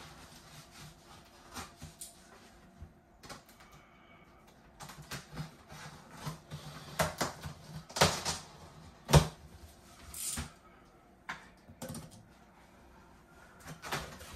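Cardboard shipping box being handled and opened: irregular knocks, scrapes and rustles as the tape is pulled off and the flaps are worked loose, with a sharper knock about nine seconds in.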